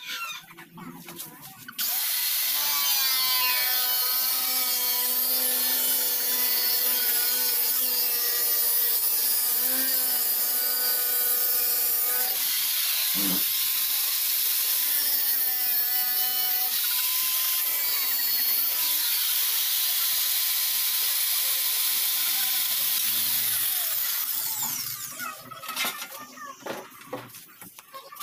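Electric power tool running on sheet metal for running-board body repair. It starts abruptly about two seconds in and dies away a few seconds before the end, its whine wavering in pitch as the load changes, with a brief dip and a knock about halfway through.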